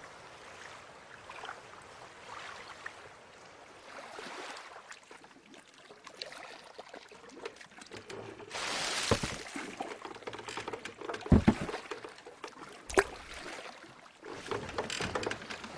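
Water splashing and lapping as oars dip into still floodwater and a small rowing boat moves across it, faint at first and louder in the second half, with two sharp knocks.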